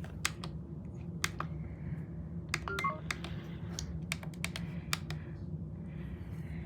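Roomba robot vacuum running: a steady low motor hum with irregular sharp clicks and knocks.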